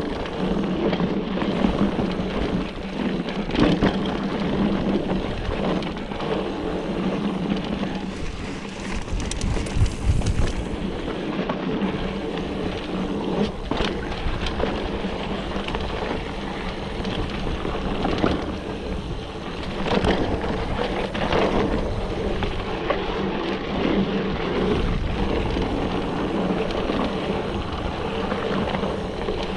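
Orbea Laufey mountain bike riding fast down dry dirt singletrack: a steady rolling noise from the tyres on the trail, broken by frequent sharp knocks and rattles as the bike goes over bumps and stones.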